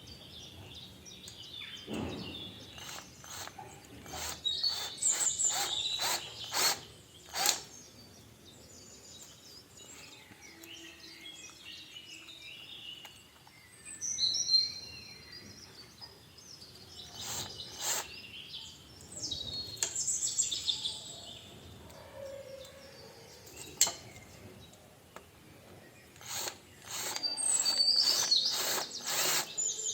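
Birds chirping and calling, with runs of short, sharp calls in quick succession several times.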